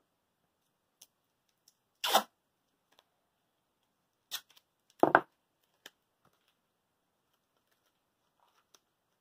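Craft materials being handled out of view: three short rustling, tearing sounds about two, four and a half, and five seconds in, the last the loudest, with a few light clicks between.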